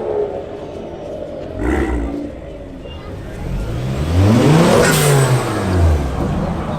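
Vehicle engine revved: a short throttle blip about a second and a half in, then a longer rev that climbs in pitch to a peak and falls back.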